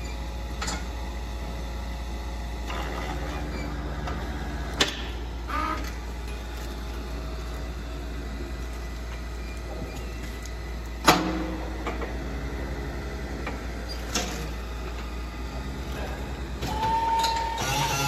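Steady low machinery hum in a cattle barn, broken by a few sharp metallic knocks from the steel hoof-trimming chute. The loudest knocks come about five and eleven seconds in.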